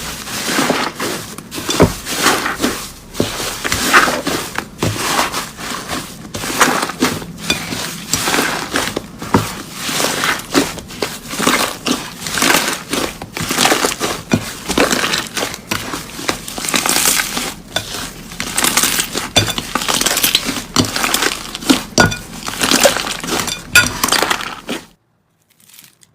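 Crunchy slime being squeezed and pressed by hand, giving dense, rapid crackling and crunching that cuts off abruptly near the end.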